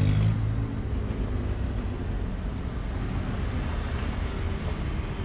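Wind noise on the microphone over a low, steady vehicle hum, a little louder in the first half-second.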